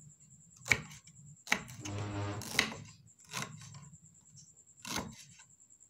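A knife slicing ginger root into small pieces on a cutting board: a handful of irregular knocks of the blade on the board, with scraping between them.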